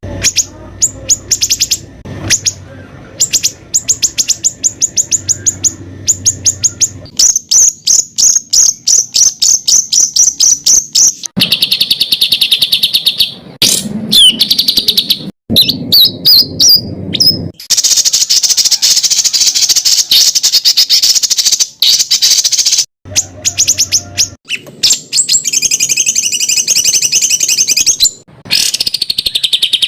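Songbird training recording of harsh, rapid song: fast strings of high repeated notes and trills, the 'tembakan kasar' phrases used to train competition birds. It comes in short spliced segments that cut off abruptly and change from one phrase to the next.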